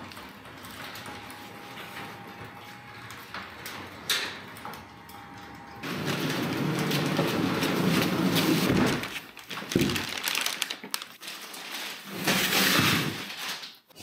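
A large plastic-wrapped kayak being handled and dragged on a concrete floor: a few seconds of scraping and rustling, a sharp knock, then more rustling, over a faint steady hum.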